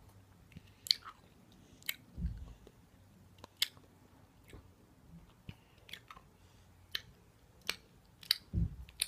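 A person chewing a very sour sweet close to the microphone: sharp, wet mouth clicks and crunches about once a second, with two dull low thumps, one about two seconds in and one near the end.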